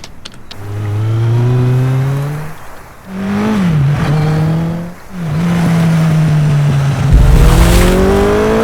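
A motor vehicle engine sound effect accelerating: its pitch climbs steadily, drops sharply at a gear change a few seconds in, holds steady, then climbs again with a deeper rumble near the end.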